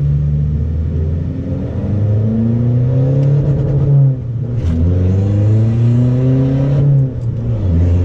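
Pickup's common-rail diesel engine heard from inside the cab, pulling hard under acceleration: the engine note rises steadily, drops sharply with an upshift about four seconds in and again about seven seconds in, then climbs once more. The engine has just been retuned with a remapped piggyback box.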